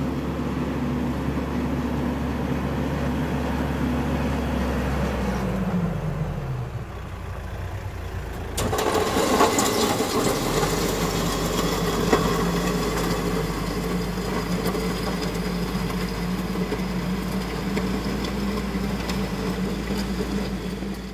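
Kioti RX7320 tractor's diesel engine running as it moves over gravel with the loader bucket lowered. Its pitch drops about six seconds in, and from about nine seconds it is louder and closer.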